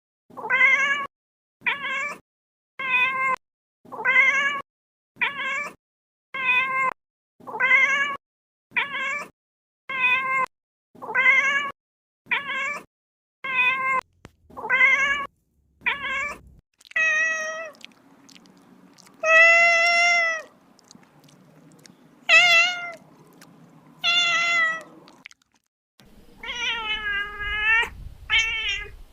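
Kitten meowing over and over: about fifteen short, evenly spaced meows, roughly one a second, then a few longer, louder meows with pauses between them.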